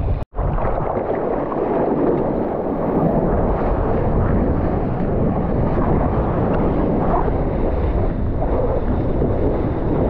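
Strong wind buffeting the microphone over the rush of surf, a steady loud roar that cuts out for a split second just after the start.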